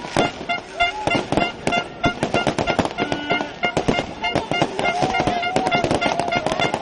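Fireworks going off in a rapid, dense string of bangs and crackles, several a second without a break, with crowd voices and short horn-like tones mixed in.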